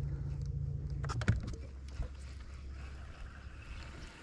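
Boat motor running with a low, steady hum that thins about a second in and fades away toward the end, with a couple of light knocks on the boat.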